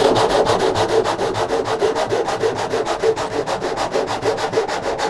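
Freshly sharpened and set brass-backed hand saw cutting through a block of pine in a fast, even run of rasping strokes.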